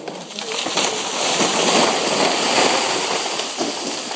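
Large eucalyptus tree falling after being felled: a continuous crash of snapping branches and thrashing leaves as it comes down through the surrounding trees and brush, building about half a second in and easing off near the end.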